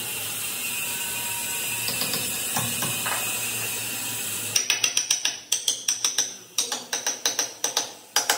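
A steady hiss, then from about halfway a quick run of sharp mechanical clicks, about three or four a second with a couple of short breaks, like a ratchet working.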